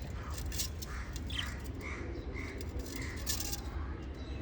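Newly hatched parrot chicks calling, short begging chirps repeating about twice a second from about halfway through, over crackly rustling and a steady low hum.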